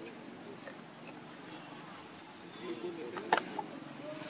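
Insects droning steadily on one high pitch, with faint voices murmuring in the background and a single sharp click a little over three seconds in.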